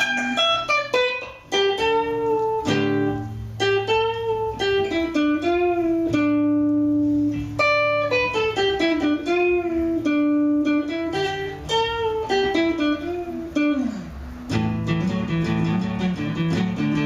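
A solo guitar, played by hand: a picked single-note melody with held, ringing notes. Near the end a note slides down and gives way to repeated chords lower down.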